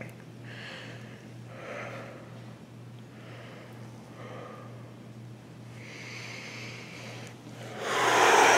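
A person breathing heavily through a held stretch: soft, separate breaths about every second or so over a steady low hum, then a much louder rush of breath near the end.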